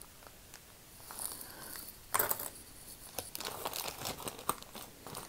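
A plastic bag crinkling and rustling as hands rummage through a pile of costume jewelry, with small clicks of the pieces knocking together. The loudest rustle comes about two seconds in.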